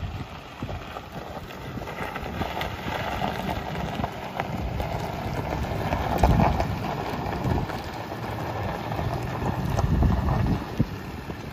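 A Ford F150 pickup's 4.6-litre V8 running, with wind buffeting the microphone.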